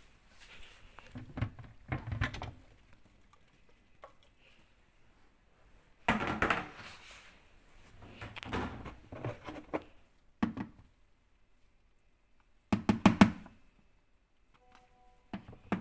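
Irregular clunks and rattles of things being handled, in several bursts with pauses between; the loudest come about six and about thirteen seconds in.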